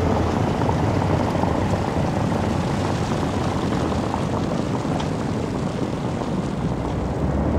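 Street traffic: a city bus and cars pass on a wet street, a steady low rumble with tyre hiss.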